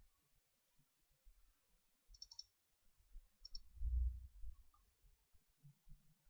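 Faint computer mouse clicks: a quick cluster about two seconds in and another click just over a second later. A brief low rumble comes around four seconds in.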